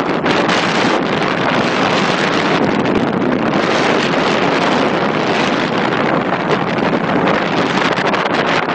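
Wind rushing loudly and steadily across the microphone.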